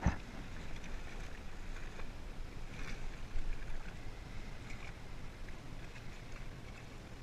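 Lake water sloshing and splashing around a kayak as it is paddled, with a sharp low thump at the very start and a louder stretch of splashing around three seconds in.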